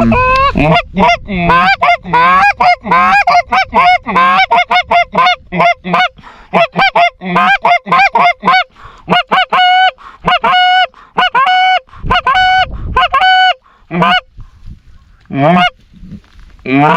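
Goose honking and clucking, loud, in a rapid series of single calls one after another, with pitch breaking sharply on each note. The calling pauses briefly about fourteen seconds in and picks up again near the end.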